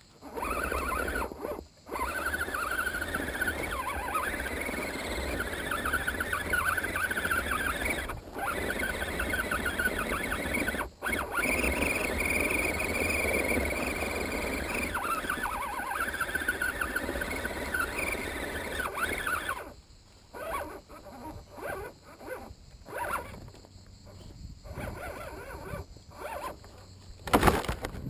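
Electric drive motor and gearbox of an RC scale crawler whining under load as it climbs, the pitch wavering with the throttle. It stops about twenty seconds in, giving way to short stop-start spurts, with a brief loud burst of noise near the end.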